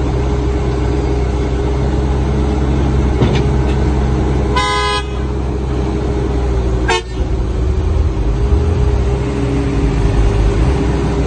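Heavy earthmoving machinery engines running steadily under load with a steady whine. Near the middle a horn gives one short toot, and a brief knock follows a couple of seconds later.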